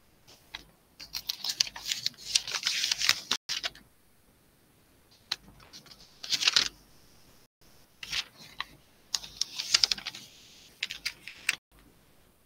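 Computer keyboard being typed on in several short bursts of quick key clicks, with pauses between them.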